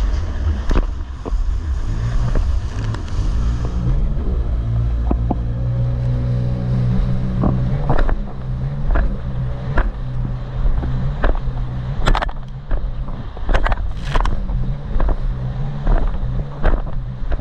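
Jet ski engine running at speed, its pitch rising and falling with the throttle, with repeated sharp thumps of the hull slapping over choppy water and a rush of spray.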